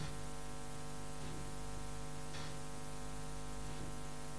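Steady electrical hum with many overtones under a hiss, with a faint short puff of hiss about two and a half seconds in.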